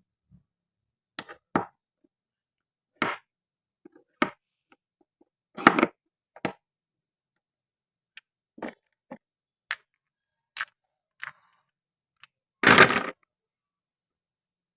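Scattered short clicks and knocks of plastic and wooden toy pieces being handled and cut, about a dozen separate taps, with a louder, longer scrape about three-quarters of the way through.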